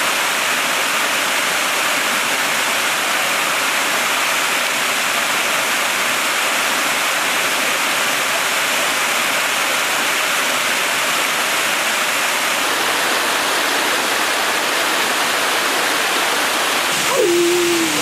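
Waterfall water pouring and splashing over rock close by, a steady loud rush. Near the end there is a short tone that drops in pitch and then holds.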